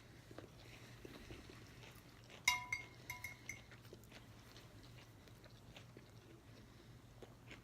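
Quiet eating at the table: faint chewing and small clicks, with a metal utensil clinking against a dish about two and a half seconds in and twice more just after, each clink ringing briefly.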